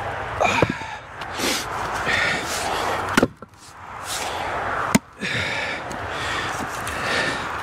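Axe striking pieces of split ash firewood, three sharp knocks with the last two about two seconds apart. It is trimming the edges off the splits to square them.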